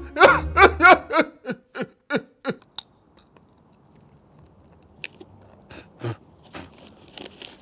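A man wails in a string of short sobbing cries, falling in pitch, for about two and a half seconds. Then faint chewing with a few scattered crisp clicks as sweets are eaten.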